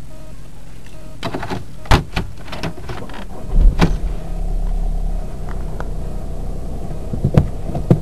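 Volkswagen Passat heard from inside the cabin: the door shuts with a thud about two seconds in, then the engine starts about a second and a half later and settles into a steady idle. A couple of clicks come near the end.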